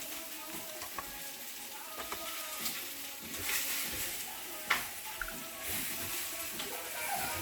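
Smeg home espresso machine pulling a shot on its single-cup button: the pump runs steadily and coffee trickles and hisses into the cup. A sharp click comes about two-thirds of the way through.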